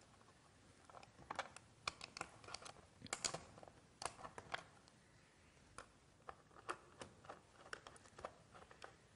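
Faint, irregular clicks and taps of hands fixing a wire to the screw terminals of a wooden electrical test board. They come thickest in the first half and thin out later.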